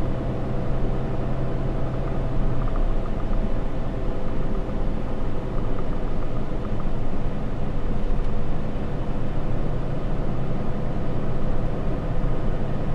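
Cab noise of a 2013 Ram 3500 pickup on the move: its 6.7-litre Cummins inline-six turbo diesel running under steady road and tyre noise, heard from inside the cab. A low steady hum drops away about two and a half seconds in.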